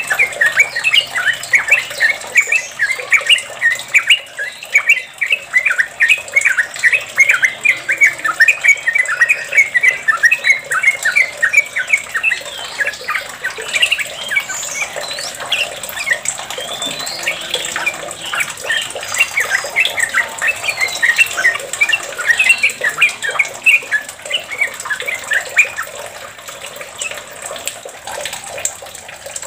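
Yellow-vented bulbul singing a long, rapid run of chirping notes, the continuous 'ropel' song that trucuk keepers aim for. The run thins out near the end.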